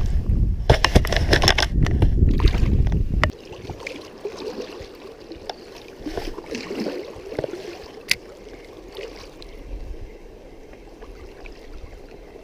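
Water sloshing and splashing close to the microphone with crackling clicks, cutting off suddenly about three seconds in. After that, softer running stream water with a few scattered clicks, one sharper click near the middle.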